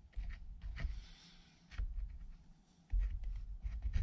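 Caulking gun being worked along a seam: a few sharp clicks over spells of low rumbling handling noise.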